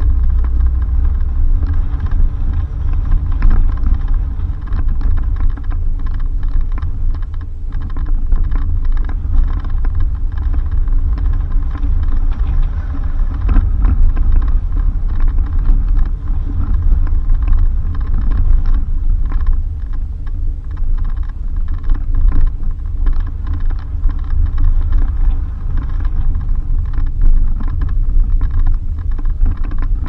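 Suzuki Jimny driving on a dirt road: a steady low rumble of engine and tyres, with frequent small irregular knocks and rattles from the rough surface.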